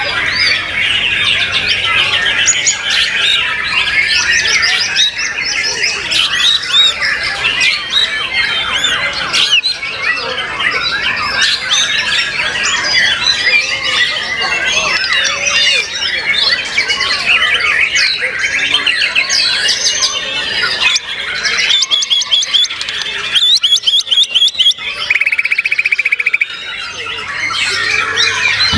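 White-rumped shamas singing loudly and continuously, several birds overlapping in a dense chatter of varied whistles, chirps and squawks. Near the end there is a run of sharp repeated notes, then a fast even trill.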